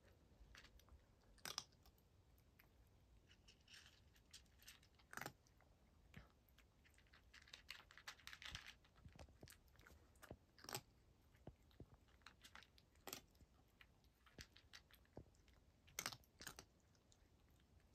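A cat chewing dry kibble: faint, irregular crunches and clicks, with a denser run of crunching about halfway through.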